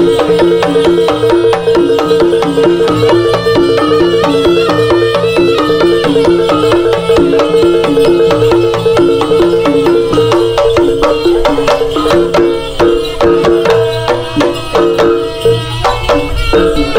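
Traditional East Javanese folk music with drums and percussion under a steady held high note and a repeating two-note melodic figure. The playing grows more broken near the end.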